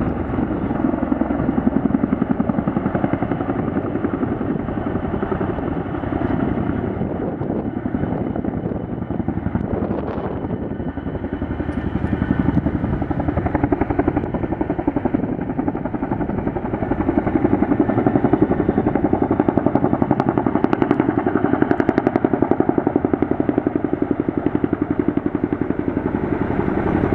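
CH-47 Chinook tandem-rotor helicopter flying overhead with a slung water bucket, its rotors giving a steady rapid beating. The sound eases off for a few seconds in the middle, then builds louder again.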